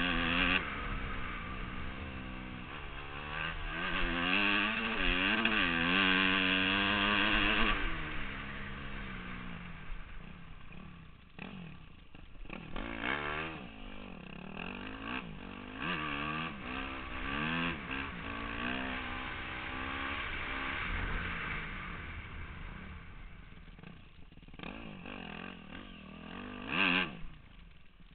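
Motorcycle engine running, heard from the rider's helmet camera, its pitch rising and falling repeatedly as the throttle is opened and closed. It is loudest at first and quieter in the second half, with one brief loud burst near the end.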